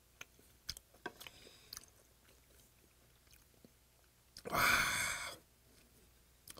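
Close-up chewing of raw stingray, with faint wet clicks and smacks for the first couple of seconds. About four and a half seconds in comes a loud breathy sound lasting under a second.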